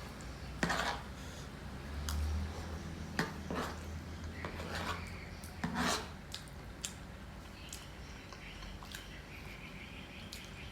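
Cutlery clinking and scraping on a plate as a heaped serving of gado-gado is scooped up and eaten, with a dozen or so scattered short clicks.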